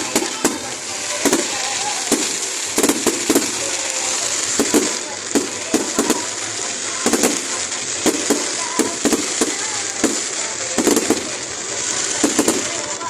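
Fireworks display: a rapid, irregular run of bangs several a second, with crackling in between.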